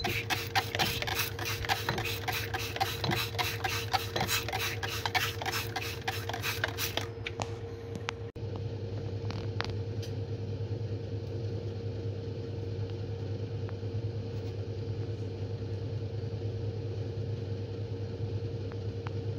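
Hand trigger spray bottle squirting water in rapid repeated strokes, rinsing silver chloride on filter paper in a Buchner funnel. The squirting stops about seven seconds in, leaving a steady low hum with a constant tone.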